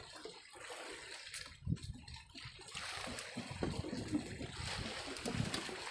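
Sea water lapping and splashing against the hull of a small wooden fishing boat, uneven, with soft low knocks.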